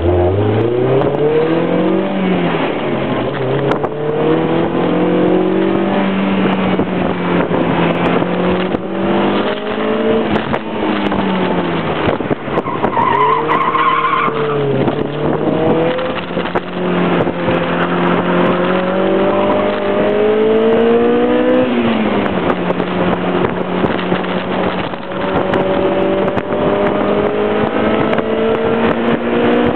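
Honda S2000's four-cylinder engine under hard acceleration, its pitch climbing and dropping several times as the driver shifts and lifts. Tyres squeal briefly about 13 seconds in.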